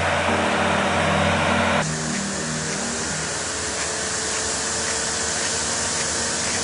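Heavy machinery engine running steadily, then an abrupt switch about two seconds in to a different, hissier engine sound, as one clip cuts to another.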